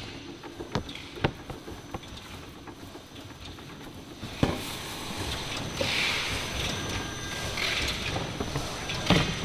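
Thin plastic bags rustling and crinkling as gloved hands handle a stack of them, with a few sharp knocks, the loudest about four and a half seconds in, over steady factory background noise.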